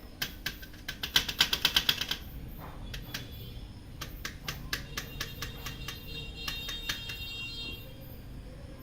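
Clicking from the waste toner drive gears of a Toshiba 2523A copier as the mechanism is turned by hand: a fast run of about ten clicks a second about a second in, then slower, spaced clicks with a faint ringing. The mechanism now turns freely after toner buildup that had jammed the pinion and caused a noise was cleaned out.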